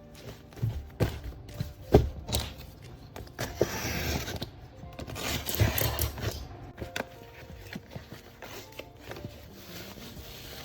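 Paper being handled: scattered taps and knocks, the sharpest about two seconds in, and rustling in the middle stretch, over faint background music.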